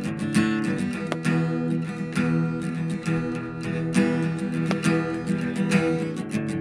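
Acoustic guitar strummed, a steady run of chords.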